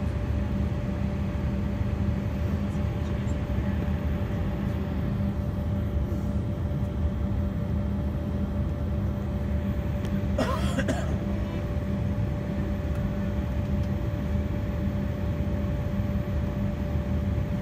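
Airliner cabin noise on the ground before takeoff: the jet engines' steady low rumble with a constant whine, not yet building up for the takeoff roll.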